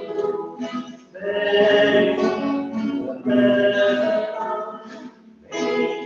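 Music: singing with instrumental accompaniment, in long held phrases with a short break near the end.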